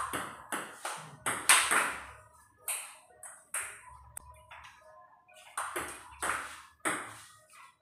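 Table tennis ball clicking back and forth off the paddles and the table in a rally, with a pause about halfway through before play picks up again.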